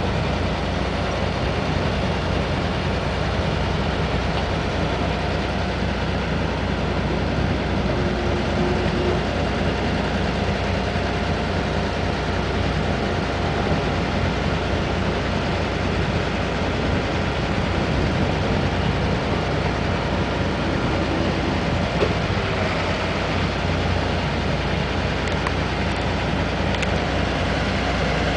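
Crane truck's engine running steadily, driving the hydraulics of its truck-mounted loader crane as the crane lifts and swings a load.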